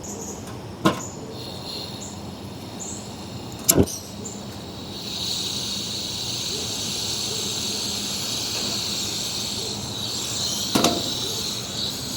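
Two sharp metal clicks of cookware on the camp stove. About five seconds in, a steady hiss starts up and carries on, with crickets chirping high and steady behind it.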